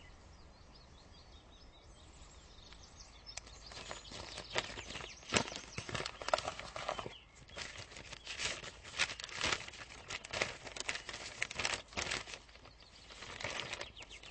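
Paper rustling and crackling as a letter is drawn out of a paper envelope and its handwritten sheets unfolded. It begins about three seconds in, after a quiet start, and goes on as a run of quick crinkles.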